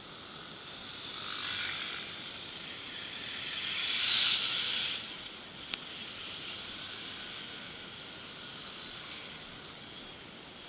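Street traffic noise, a hiss that swells twice as motor scooters and a small truck pass close by, the second time louder, with a single sharp click a little later.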